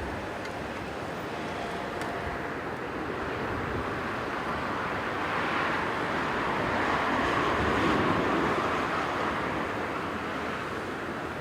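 Jet airliner (Airbus A330-300) on approach, its engine noise swelling to a peak about eight seconds in and easing off, mixed with strong wind buffeting the microphone.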